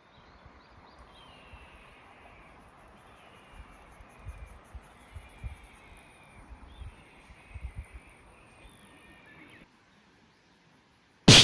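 Outdoor summer ambience: birds calling and a high, steady insect buzz, with scattered low thumps. It cuts out suddenly, then a single short, loud bang comes near the end.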